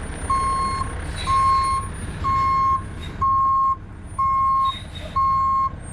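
Dump truck's reversing alarm beeping about once a second, six even beeps at one pitch, as the truck backs up, with its engine running low underneath.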